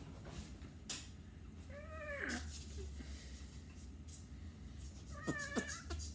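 Meowing: a long meow about two seconds in that rises and then slides down in pitch, and a shorter, choppier meow about five seconds in. A sharp click about a second in, over a faint steady low hum.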